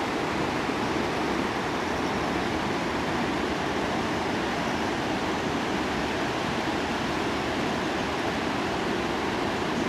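Steady rushing of a whitewater mountain river below, an even, unbroken noise.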